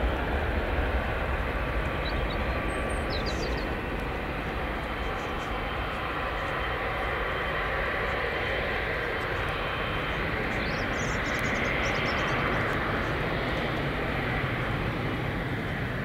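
Boeing 777 jet engines running at taxi power: a steady jet rumble and hiss that swells slightly about twelve seconds in.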